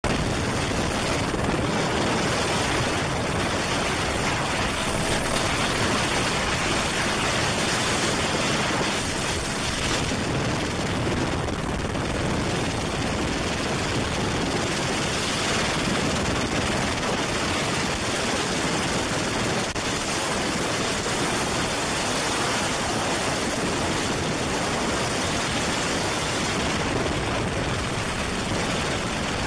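Écureuil helicopter in flight, heard from on board: a steady, even rush of rotor, engine and wind noise.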